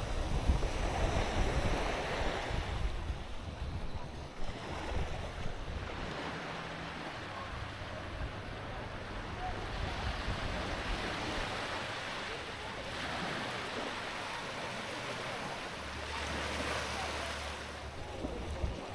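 Sea waves washing onto a sandy beach, the surf swelling and fading every few seconds, with wind buffeting the microphone in the first few seconds.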